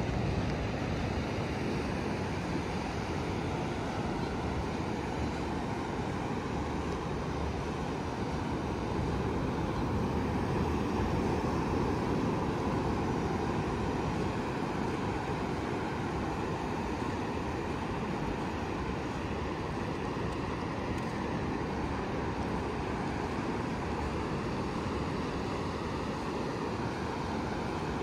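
Ocean surf breaking and washing up a sandy beach: a steady rush of waves that swells a little around the middle.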